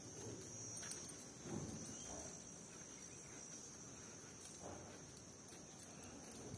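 A few soft footsteps on concrete, spaced irregularly, over a faint steady high-pitched whine.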